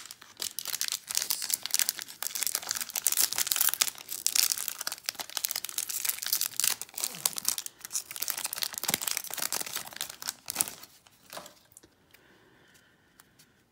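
A foil baseball-card pack wrapper being torn open and crinkled by hand: a dense crackling rustle that stops about eleven seconds in.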